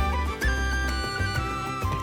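Background music: an upbeat folk-style tune with a flute-like melody over a heavy bass beat.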